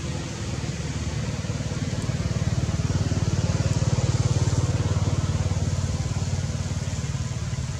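An engine running with a low, pulsing hum that grows louder about halfway through and then eases off.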